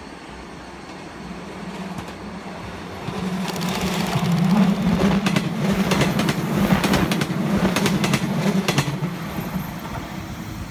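A West Japan Railway 115 series four-car electric train passing close by. Its rumble swells as it approaches. The wheels clatter in a fast run of sharp clicks as the cars go past, over a steady low hum, and the sound fades near the end.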